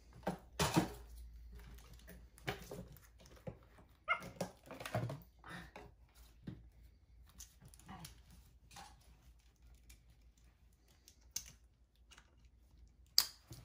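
A pet monkey making a few short calls while its pyjamas are handled, with fabric rustling and small clicks of the suit being fastened; a sharp click near the end.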